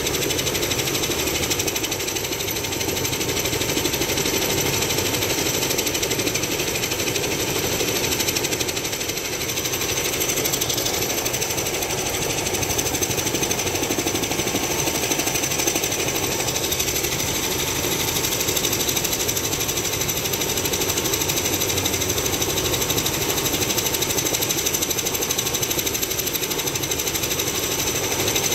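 Helicopter running: a rapid, steady rotor chop with thin, steady high-pitched whines above it.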